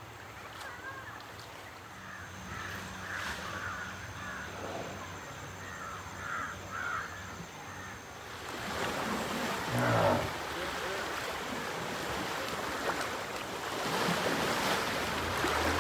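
Outdoor ambience: a few short calls in the first half, then a steady rushing noise that grows louder, with a louder burst about ten seconds in.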